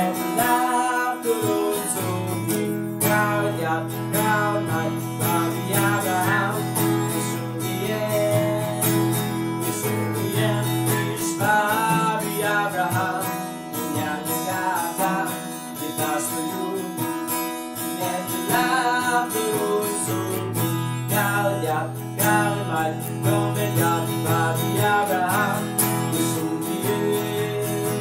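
Acoustic guitar strummed in a steady rhythm, accompanying a man singing.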